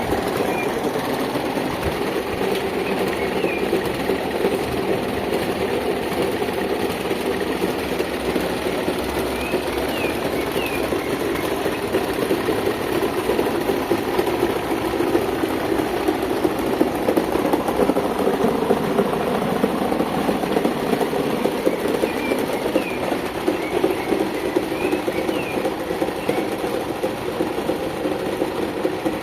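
Electric fan with a broken blade running, a steady mechanical whir with a fast, dense rattle that holds at an even level throughout.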